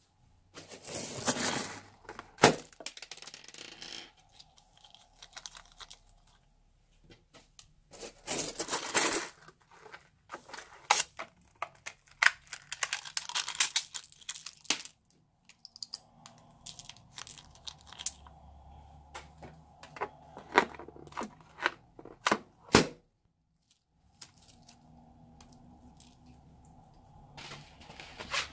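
Scissors snipping open small rubber balloons, with sharp separate snips, and the foam beads and small plastic charms inside spilling out onto a plate of slime in several bursts of a second or two.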